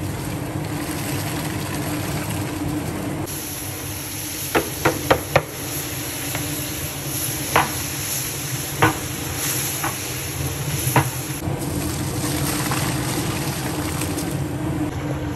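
A large aluminium pot of bubur lambuk stirred with a long wooden paddle, the paddle knocking sharply against the pot about seven times, four of them in a quick run. Under it runs a steady rushing noise with a low hum.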